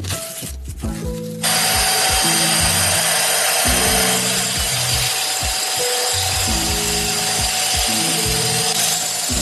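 A power tool working wood starts about a second and a half in and runs steadily: a dense hiss with a faint whine. Background music with a steady beat plays under it.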